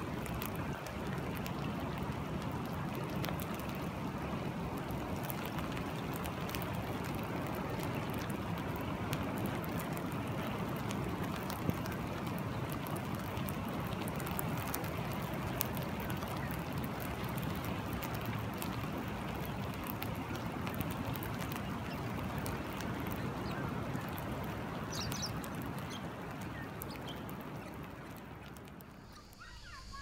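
Steady rush of a swollen river flowing over rock, with light rain speckling the water as fine ticks. A short high chirp comes about twenty-five seconds in, and the sound fades down just before the end.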